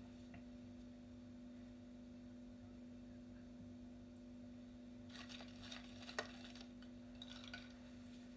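Very quiet steady hum, with a scatter of small clicks and rustles about five seconds in, one sharper click among them, and a few more near the end.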